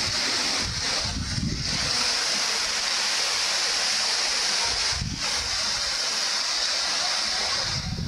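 Strong wind rushing through trees, a steady hiss of tossing leaves, with gusts buffeting the microphone about a second in and again about five seconds in.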